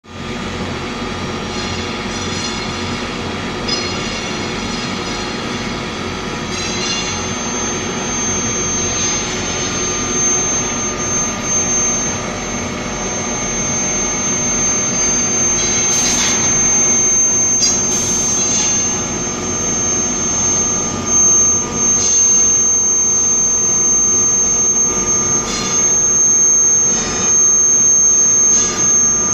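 Induction hardening machine running in a workshop: a steady machine drone with a strong, steady high-pitched whine that comes in about a quarter of the way through, and a couple of sharp knocks around the middle.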